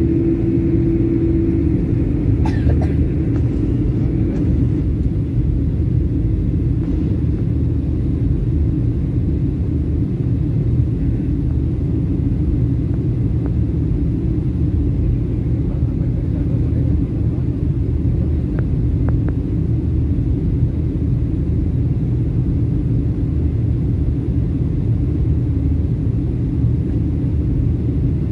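Steady low rumble of cabin noise inside a Boeing 737 MAX 9 in flight on its descent, the sound of its engines and the air rushing past the fuselage. A steady hum on top of it stops about two seconds in, and a few faint clicks follow soon after.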